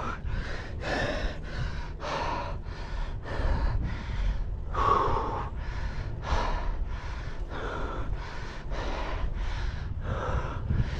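A cyclist breathing hard and fast, about two breaths a second, over a steady low rumble.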